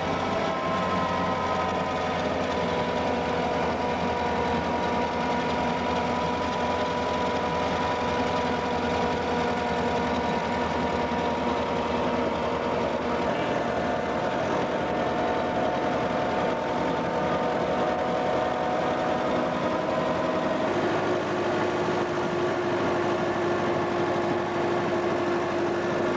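Vintage car's engine and drivetrain running under load as it climbs a canyon grade in a lower gear, heard from inside the cab: a steady drone with a whine that sags slowly in pitch. About 21 seconds in the sound changes abruptly and settles on a steadier, lower tone.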